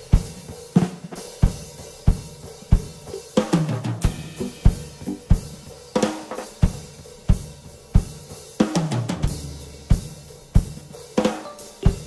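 Yamaha drum kit played live in a steady groove: loud kick and snare strokes about every two-thirds of a second, with cymbals and hi-hat between them.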